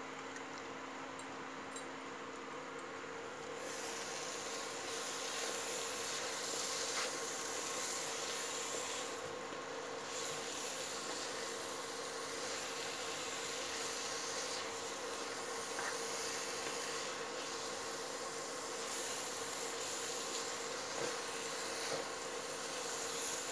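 Carrot halwa roasting in ghee in a pan, stirred and scraped with a wooden spatula, giving a soft sizzle and scraping from a few seconds in. Under it runs the steady hum of the induction cooktop.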